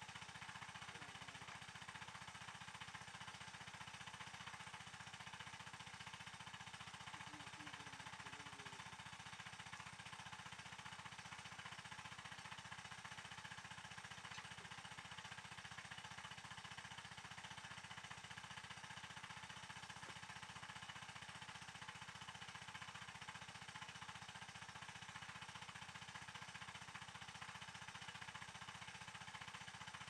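Near silence: a faint, steady background hiss, with a few very faint wavering sounds about a second in and again around eight seconds.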